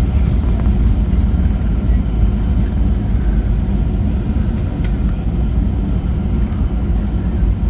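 Steady low cabin rumble inside a Boeing 737-800 taxiing, from its CFM56-7B engines at taxi idle and the wheels rolling over the taxiway.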